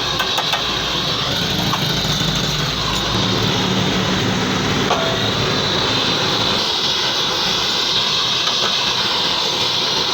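Steady machine noise with a constant hiss and a low hum, running evenly without strikes or pauses.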